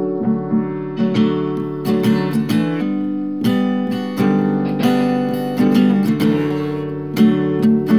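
Background music: strummed acoustic guitar chords, fuller and brighter from about a second in.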